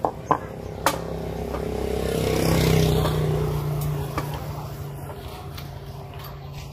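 A motor vehicle engine passing by, swelling to a peak partway through and then fading away. A few light metal clinks of engine parts being handled can be heard.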